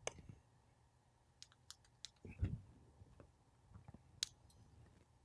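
Fidget Cube's click buttons pressed by fingertips: a scattered run of faint, sharp plastic clicks, with a soft knock of the cube being handled about midway.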